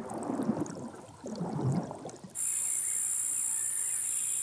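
Low, murky underwater wash of moving water. About two seconds in, it cuts abruptly to a steady, high-pitched insect trill, which is the louder of the two sounds.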